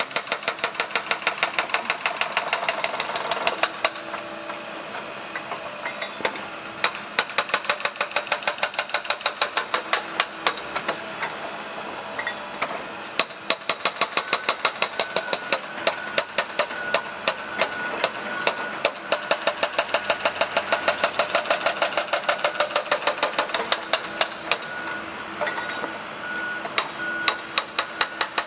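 Hydraulic breaker hammering at the street pavement, rapid steady blows several times a second in long runs with brief pauses, over the steady running of a diesel engine.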